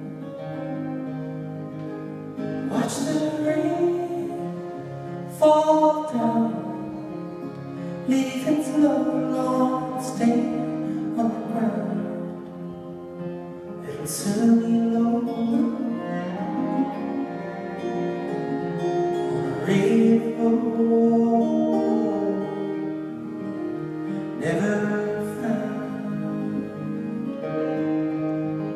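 A folk band playing a slow song live: strummed acoustic guitars, accordion and cello, with a singing voice.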